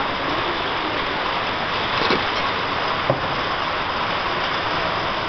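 Heavy rain falling in a steady hiss on floodwater and roofs, with a brief knock about three seconds in.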